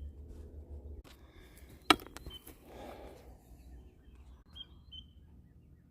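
A digital torque wrench with a 19 mm socket checking a camper wheel's lug nuts to 100 foot-pounds: one sharp metallic click about two seconds in, with a few faint short high chirps afterwards.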